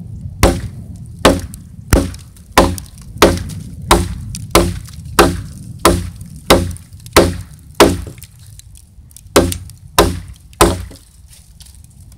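Hatchet chopping into a log that is hard as a rock: about fifteen sharp strikes, roughly one and a half a second, each a ringing knock, with a short pause after the twelfth.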